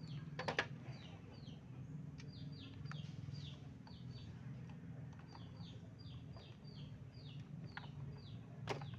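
Small birds chirping: a long run of short, quick, downward-sliding chirps repeating over a steady low hum. Two sharp metal clicks from tools on the chainsaw carburettor, about half a second in and near the end.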